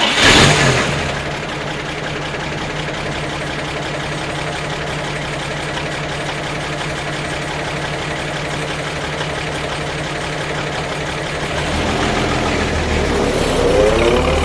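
1938 Chevrolet coupe's inline-six engine catching with a loud burst as it fires up, then idling steadily. About twelve seconds in it grows louder, and near the end it revs up with a rising pitch.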